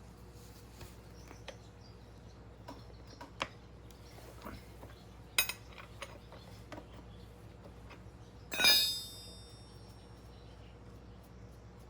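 Metal tools and parts being handled: scattered light clicks and taps, then one louder metallic clink about two thirds of the way in that rings briefly.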